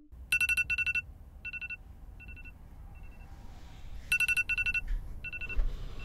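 Electronic alarm beeping: quick runs of short, high two-tone beeps in repeating groups, some loud and some fainter, the sound of a wake-up alarm going off.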